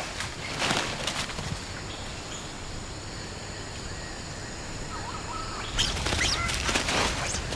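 Tropical forest ambience: a steady background hiss with scattered bird calls, which come in clusters about a second in and again near the end.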